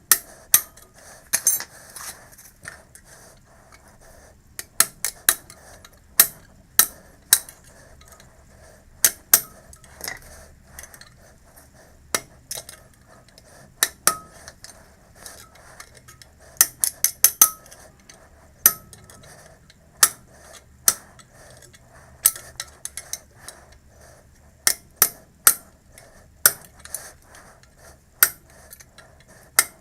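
Sharp, irregular metallic clinks and taps of hand tools and metal parts being handled, some coming in quick clusters of three or four, over a faint steady hum.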